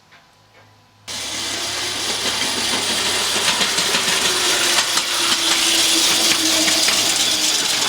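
Wheels of a 5-inch-gauge ride-on garden railway train rolling through a tight curve of about 2.5 m radius: a loud, dense metallic clattering and rattling that starts abruptly about a second in. Only a faint whine rides on it and there is no strong curve squeal, the rail head being lubricated with HeadLub.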